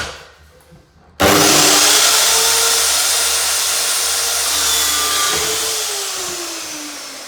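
Electric mitre saw starting abruptly about a second in, cutting MDF skirting board. It then runs down with a whine that slowly falls in pitch as it fades. A short knock comes right at the start.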